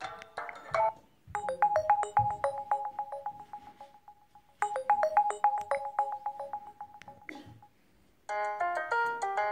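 LG Smart Folder phone ringtone: a short electronic phrase of quick plucked-sounding notes over one repeated pitch, lasting about three seconds, played twice with a short pause. A different, fuller ringtone starts near the end.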